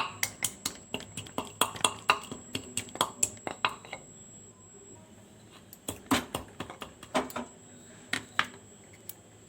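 Pestle knocking in a small mortar, coarsely crushing whole cloves, black pepper, harad and cardamom: quick strikes about four a second, a pause of nearly two seconds, then a few scattered strikes.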